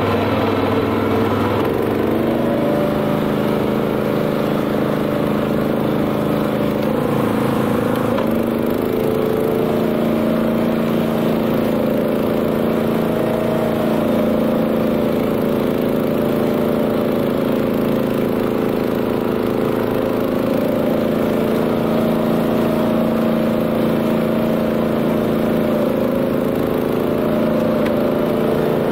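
Honda GX390 single-cylinder petrol engine of a BCS 740 two-wheel tractor running steadily at working speed, driving a flail mower. Its note shifts twice in the first eight seconds as the load changes, then holds even.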